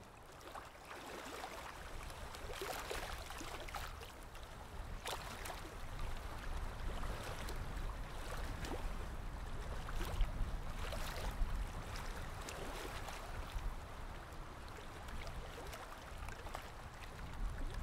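Small lake waves lapping and splashing at the shore in an irregular run of soft splashes, over a low rumble.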